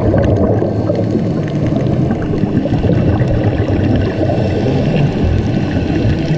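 Underwater sound picked up through a dive camera's housing: a steady, dense low rumble of water with faint scattered clicks above it.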